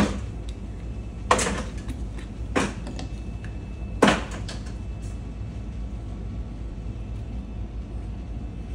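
Spring clamps and a small glued wooden frame being handled and set down on a wooden workbench: four sharp clacks spread over the first four seconds, over a steady low hum.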